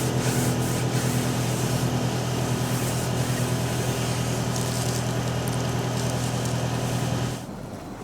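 A steady mechanical hum with an even rushing hiss, like a vehicle running, which drops away abruptly about seven seconds in.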